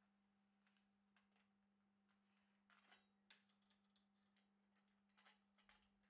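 Near silence under a faint steady hum, with a few faint clicks of a bicycle chain being seated on the chainring teeth by hand. The sharpest click comes about halfway through, and a few more come near the end.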